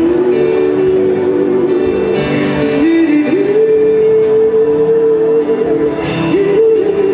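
Live jazz-pop band playing, with long held sung notes that step up in pitch a little over three seconds in and again near the end.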